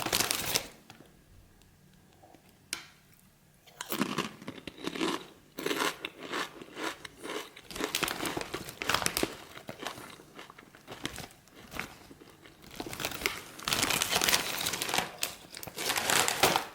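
Plastic chip bag crinkling mixed with the crunching of deep-ridged potato chips, in irregular bursts with short pauses and a longer, dense spell near the end.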